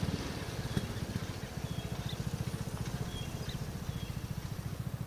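A small engine running steadily, heard as an even, rapid low pulsing, with a few faint bird chirps over it.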